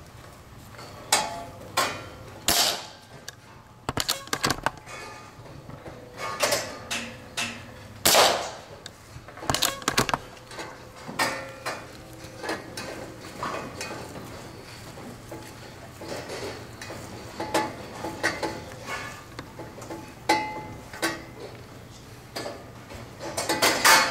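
A scattered series of sharp knocks and clatters at irregular intervals, with a few short higher tones among them. The loudest come about eight seconds in and just before the end.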